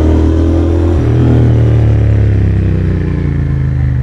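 Royal Enfield Interceptor 650's 648 cc parallel-twin engine running under way, with a change in the engine note about a second in and the pitch easing down slightly toward the end.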